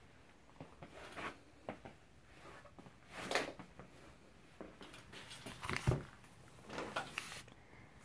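Faint handling noise: scattered soft clicks, rustles and light knocks from a tablet being held and moved, the loudest about three seconds in.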